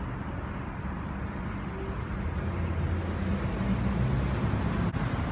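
City street traffic, with a motor vehicle's engine running low and steady, growing louder about two seconds in.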